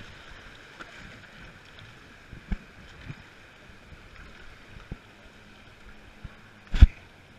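Whitewater river rushing steadily past a paddle raft, with a few sharp knocks as the paddlers work, the loudest about seven seconds in.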